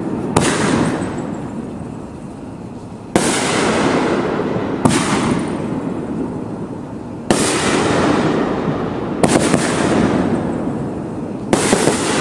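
Aerial consumer firework, BigFireworks item 2931 'Mass Explosion', firing shots: about six sharp bangs a couple of seconds apart, each dying away over a second or two.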